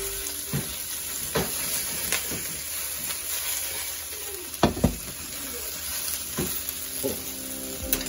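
Shrimp, tofu cubes and green onion sizzling in a wok as it is stirred and tossed, with a few sharp knocks, the loudest two close together about four and a half seconds in.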